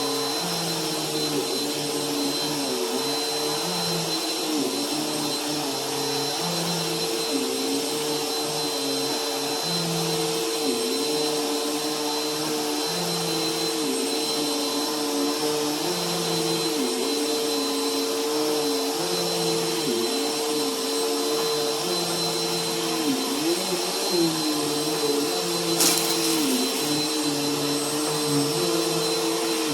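Bissell bagless vacuum cleaner running steadily as it is pushed back and forth over carpet. Its motor tone wavers every second or two with the strokes, and there is one brief crackle near the end.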